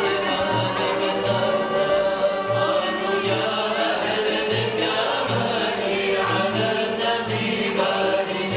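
A string ensemble of ouds, mandolins, guitars and upright-held violins with keyboard plays alongside group singing, over a steady low beat.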